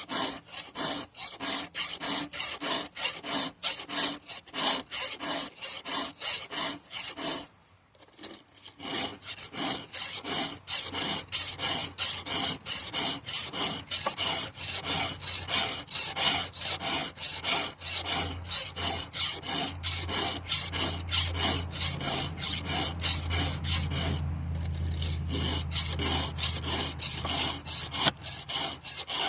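A file being stroked across the teeth of a chainsaw chain during sharpening: a steady rhythm of short rasping strokes, with a brief pause about eight seconds in. A low steady hum comes in underneath during the second half.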